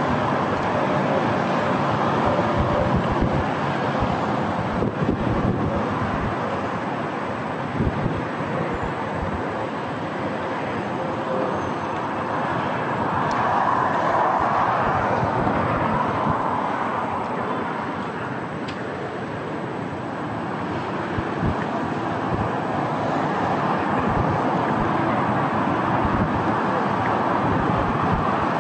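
Steady city traffic noise, swelling and easing a little, with wind buffeting the microphone.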